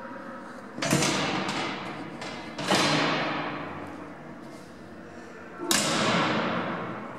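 Old metal swing gates at a station ticket barrier banging three times, about a second in, near three seconds and near six seconds, with a few lighter knocks after the first. Each bang echoes away for a second or two off the tiled vault.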